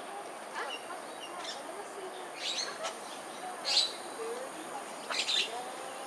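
Animal calls: a series of short, sharp high-pitched chirps, the loudest about two-thirds of the way through, over faint wavering lower whistles.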